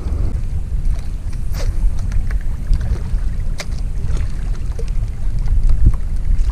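Wind buffeting the microphone on an open boat: a steady low rumble, with a few faint ticks scattered through it.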